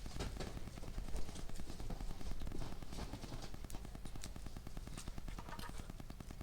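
Wood fire crackling with many irregular sharp pops and snaps over a low steady rumble.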